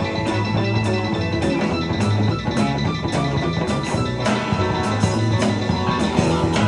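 Live garage R&B band playing amplified: electric guitars and bass over a drum kit keeping a steady beat, with no singing.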